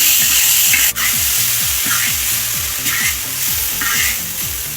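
An egg and chive stir-fry sizzling in hot oil as minced garlic is stirred in, with a spatula scraping the pan about once a second. Background music with a steady beat plays underneath.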